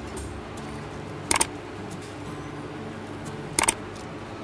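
Two sharp double clicks about two seconds apart, the mouse-click sound effect of a subscribe-button animation, over a steady low hum.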